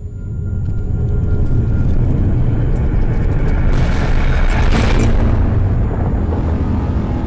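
Deep cinematic rumble with a rushing swell that builds about four seconds in and then eases: sound design for an animated channel logo intro.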